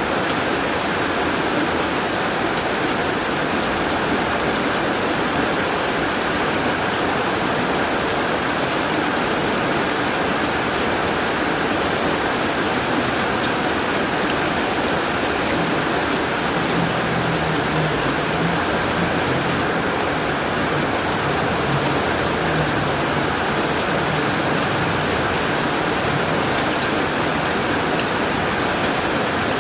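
Heavy rain falling steadily on a tin roof: a dense, even hiss of drops.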